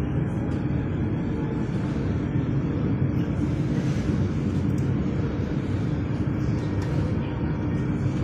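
Tram running along its line, heard from inside the car: a steady low rumble with a steady hum over it.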